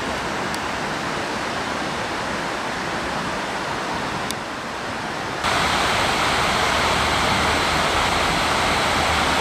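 River water rushing, a steady even noise that gets abruptly louder about five and a half seconds in.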